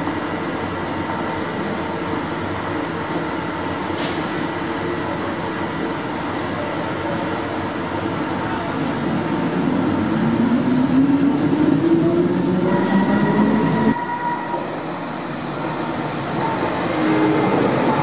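Stuttgart S-Bahn electric trains in an underground station. A standing train's traction motors whine, rising in pitch from about halfway through as it pulls away, and stop abruptly; near the end another train comes in along the platform, growing louder.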